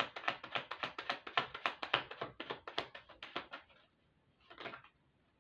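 A tarot deck being shuffled by hand: a quick run of cards clicking against one another, several a second, that stops about two-thirds of the way in, followed a second later by one more short shuffle.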